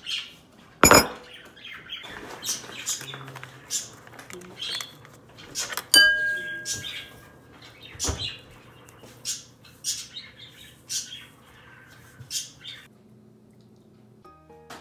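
A metal spoon clicking and scraping against a ceramic bowl, a dozen or so sharp clinks, one of which rings on about six seconds in. A faint low hum sits underneath through most of it.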